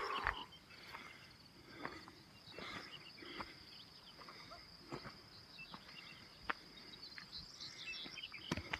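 Footsteps crunching on a stony dirt track at a walking pace, over a steady high-pitched chirring of insects. A few short bird chirps come in near the end.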